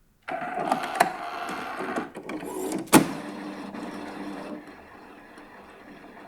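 Paper printer starting up abruptly and running with a busy mechanical clatter, a sharp click about a second in and a louder one about three seconds in, then settling into a quieter steady run.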